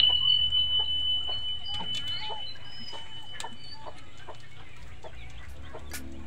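Chickens clucking in the background over the crackle of a wood cooking fire. A steady high ringing tone starts at the outset and fades away over the first four seconds.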